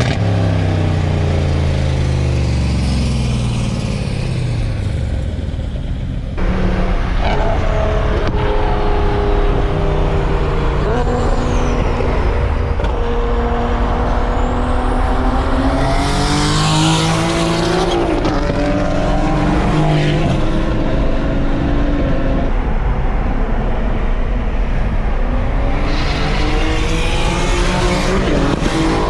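A performance car engine revving and accelerating, its pitch climbing and dropping repeatedly as it runs through the revs. The sound changes abruptly about six seconds in, and there is a loud hissing burst about two-thirds of the way through.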